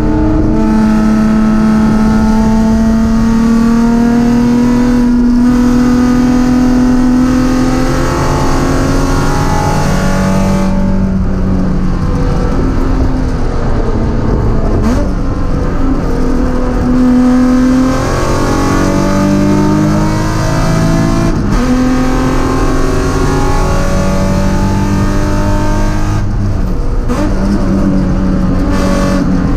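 BMW S52 inline-six, fitted with an M50 intake manifold and a straight-piped race exhaust, heard from inside the stripped cabin of an E36 M3 race car on track. The engine pulls hard with its pitch climbing steadily for about eight seconds, then a run of lifts, gear changes and re-accelerations through the corners.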